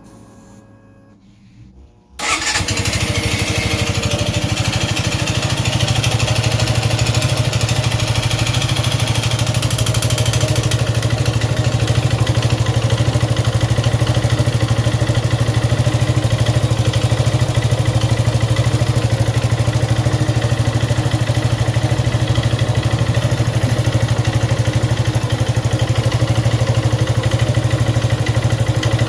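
Suzuki Gixxer 155's single-cylinder engine starting about two seconds in, then running steadily at idle with a noise in the engine. The mechanic suspects the cam chain, too-wide valve clearance or piston and ring wear after the owner neglected the oil.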